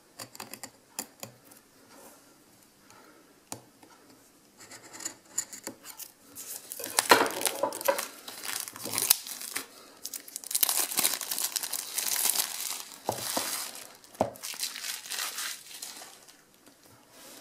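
Plastic shrink-wrap on a phone box being cut and peeled off. For the first few seconds there are light scratches and clicks as a knife works at the film. From about six seconds in come loud bursts of tearing and crinkling as the wrap is pulled away, easing off near the end.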